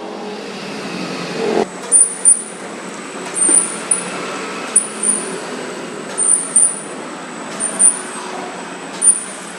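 Plastic-bag cutting machine running on a test run: a steady mechanical drone with a repeating cycle of short, sharp high-pitched sounds, usually two close together, about once every one and a half seconds.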